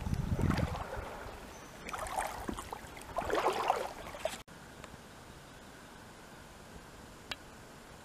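Water splashing and gurgling around a small boat in three bursts about a second and a half apart. About four and a half seconds in, this cuts off abruptly to a steady faint hiss, with a single click near the end.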